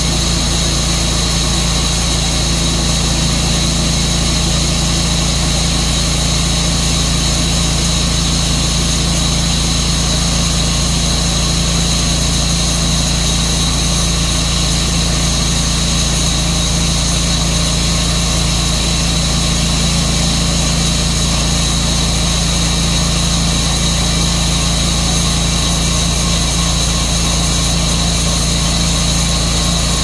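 Tru-Cut sawmill running steadily under its engine, with a steady high whine above the engine's drone.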